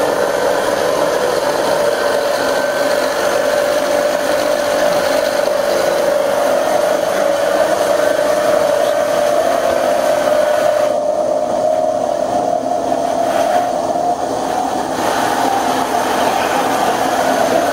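Bicycle-driven pedal generator rig whining steadily as the bike is pedalled, the pitch creeping up through the middle and dropping away near the end.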